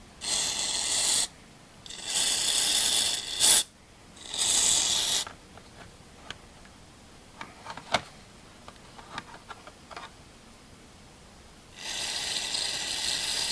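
Aerosol carburetor cleaner sprayed onto a chainsaw carburetor in four hissing bursts of one to two seconds each, the last starting near the end, with a long gap before it. Small clicks and taps from handling the carburetor come between the bursts.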